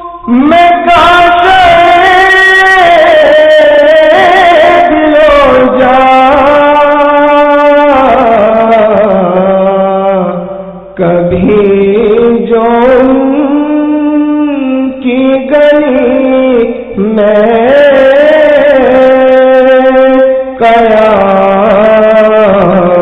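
Naat devotional music: one melody line in long, wavering held notes, in phrases of a few seconds, with a short break just before the middle.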